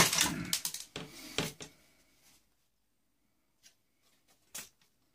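Clatter and clicks of small parts and tools being handled while a boombox is taken apart, dying away after about a second and a half, then two separate clicks, the second louder.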